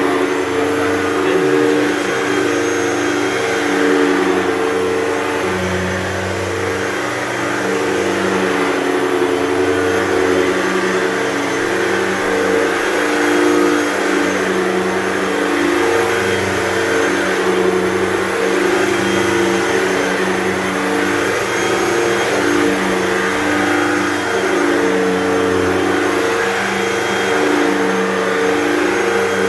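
Hoover Total Home Pet upright vacuum cleaner running steadily while vacuuming carpet, its motor pitch wavering slightly.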